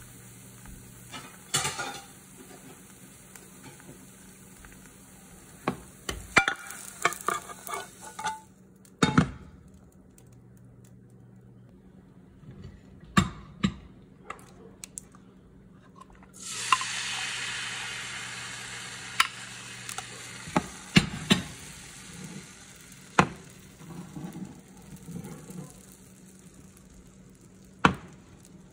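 Clicks and knocks of a utensil against a nonstick frying pan. About halfway through, a sudden sizzle from the hot pan fades slowly over several seconds.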